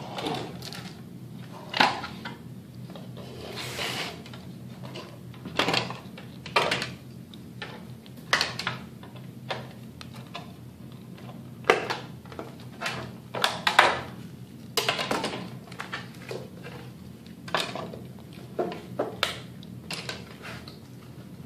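Scissors cutting the edge of a thin plastic stormtrooper shin piece: irregular crisp snips and crackles every second or so, with a steady low hum underneath.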